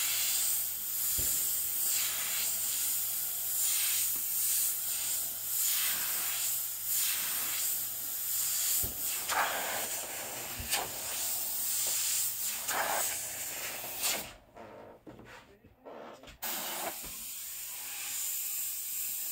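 Airbrush hissing as compressed air sprays paint onto a T-shirt, the hiss swelling and easing as the trigger is worked. It stops for about two seconds near the end, then starts again.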